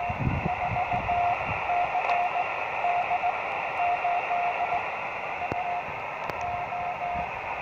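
Morse code (CW) on 40 metres from a Pixie QRP transceiver, played through a small speaker: a single steady tone keyed in groups of dots and dashes over constant receiver hiss.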